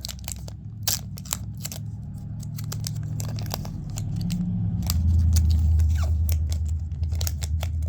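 A foil trading-card booster pack being worked open, with sharp crackles, snips and clicks of the wrapper as it resists, and a low rumble that swells about five seconds in.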